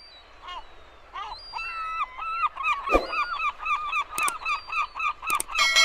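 A flock of water birds calling over and over in short, rising-and-falling notes, many overlapping, growing busier after about a second. A few sharp clicks cut through in the second half, and music starts right at the end.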